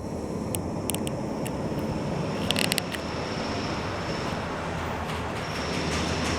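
Steady low rumble of a vehicle in motion, with a thin high whine running through it and a few sharp clicks, a small cluster of them about two and a half seconds in.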